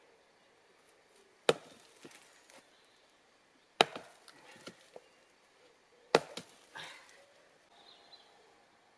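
Three heavy blows of wood on wood, about two seconds apart, each followed by a few lighter knocks: a wooden door post being pounded down from above with a chunk of log.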